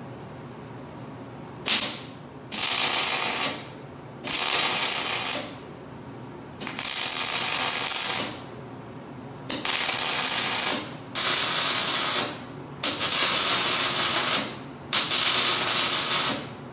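Electric arc welding on steel: the arc crackling and hissing in a string of short welds, about eight bursts of one to two seconds each with brief pauses between.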